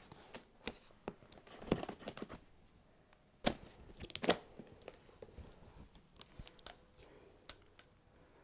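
Handling noise of a hard clarinet case being opened and a clarinet being put together: scattered clicks and knocks with rustling between them, the sharpest clicks about three and a half and four and a half seconds in.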